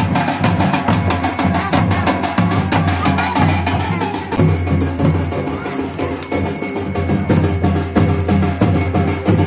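Traditional Garhwali drumming: a dhol barrel drum and a small damau kettle drum beaten together in a fast, steady rhythm.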